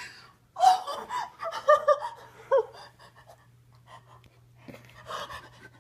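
A woman's emotional outburst: breathy, gasping laugh-sobs in several loud short bursts in the first half, then softer breaths and whimpers.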